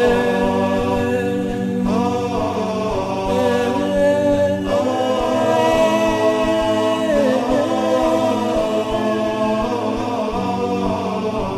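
Chanted vocal music: voices hold long, slowly gliding notes over a steady low drone.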